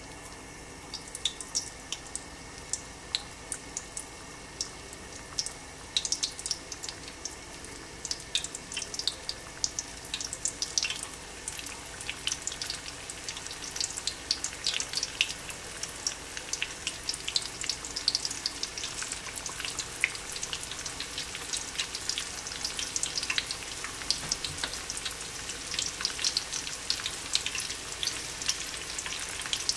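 Tempura-battered potato chops frying in hot oil: a steady sizzle with many sharp crackles and pops, growing busier after the first few seconds.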